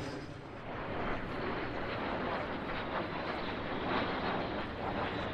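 Jet noise from a formation of small jet aircraft flying overhead: a steady rushing sound with no clear engine tone.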